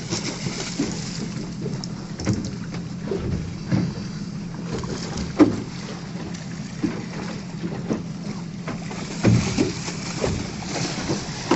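Boat at sea with a steady low engine hum, wind buffeting the microphone, and scattered short knocks during the fight with a hooked fish.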